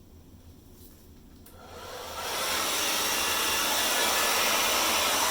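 Hand-held hair dryer switched on after a faint click about a second and a half in, its blowing rising over about a second to a loud, steady rushing hiss.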